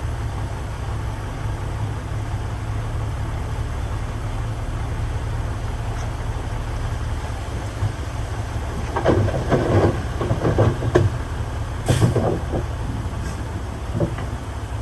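A heavy construction machine's diesel engine runs steadily with a low drone. From about nine seconds in there are a few seconds of irregular clattering and knocks, with one sharp knock near the twelve-second mark and a smaller one near the end.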